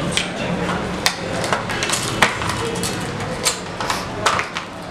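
Cardboard earbud box, its insert tray and a plastic earbud case being handled on a table: a string of irregular sharp taps and knocks.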